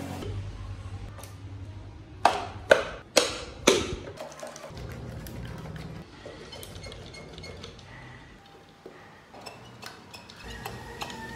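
Four sharp knocks about half a second apart, the loudest things here, then a few faint light clicks.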